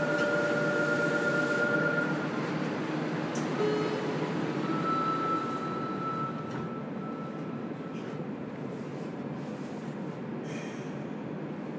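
JR Kyushu 303 series electric train running, heard from inside a motor car: steady wheel and running noise with the steady whine of its Toyo IGBT inverter, whose tones stop about two seconds in. A shorter whine returns from about four to eight seconds, and the running noise eases off in the second half.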